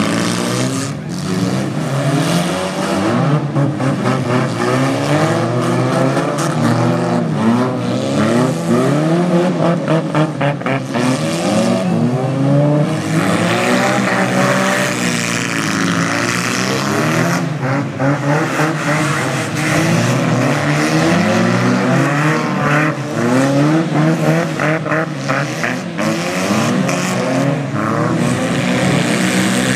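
Engines of several old passenger cars racing on a dirt figure-8 track, revving up and easing off over one another, so the pitches keep rising and falling.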